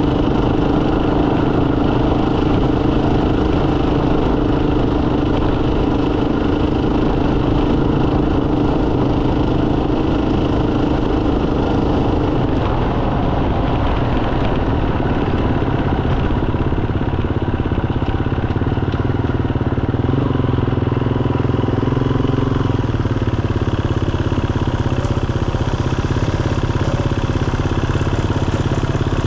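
Motorcycle engine running steadily while under way. The engine note changes a little under halfway through.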